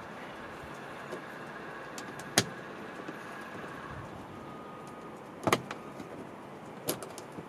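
A few sharp clicks and taps of hands and a screwdriver working at the edge of the hatchback's plastic rear interior trim panel, over a low steady background hiss. The clicks come about two and a half, five and a half and seven seconds in.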